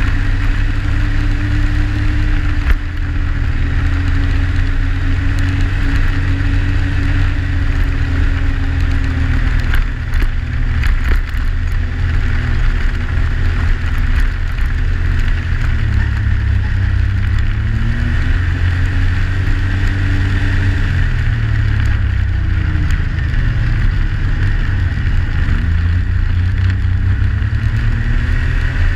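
Yamaha Sidewinder snowmobile's turbocharged three-cylinder four-stroke engine running at a steady trail cruise, heard from on board. In the second half its engine speed drops and rises again several times as the throttle is eased off and reapplied.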